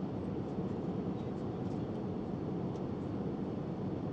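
Steady cabin noise of a Boeing 787-9 airliner in flight: an even, low rush of engine and airflow noise.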